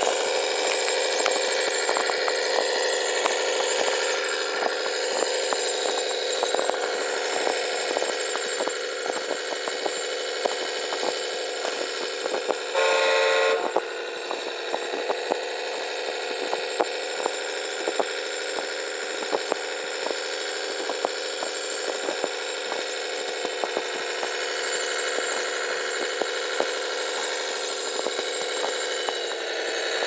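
Radio-controlled Globe Liner semi-truck running through snow: a steady mechanical whine from its drivetrain with scattered ticks, and a short pitched tone like a horn about thirteen seconds in.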